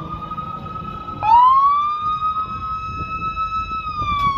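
Police vehicle sirens wailing, the pitch rising and falling slowly; a second, louder siren starts about a second in with a quick upward sweep.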